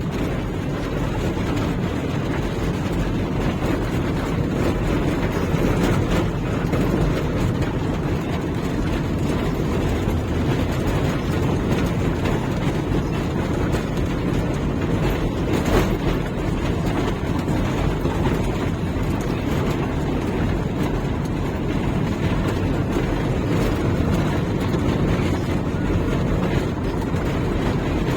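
Steady, loud rumble of a car driving on a wet road in heavy rain: tyre and road noise with rain, heard from inside the vehicle.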